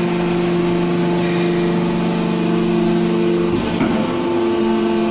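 YF-90 silage baler running with a steady motor hum. About three and a half seconds in, a couple of clicks sound and the lower hum shifts slightly in pitch.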